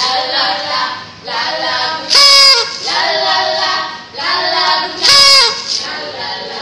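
Group of women singing a short repeated chant-like song, with a louder, high call twice, about three seconds apart.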